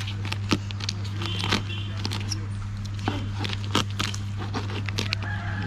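Knife cracking and cutting through spiny lobster tail shells on a plastic cutting board: a string of irregular sharp cracks and clicks, the sharpest about half a second in. A steady low hum runs underneath.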